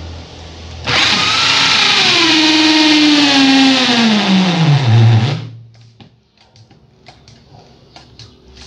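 Corded electric drill cutting into MDF with a hole saw: it starts about a second in, and its motor pitch falls steadily as the saw bites and drags, typical of the hole saw grabbing in MDF and loading the drill. It stops after about four and a half seconds, followed by faint clicks and knocks.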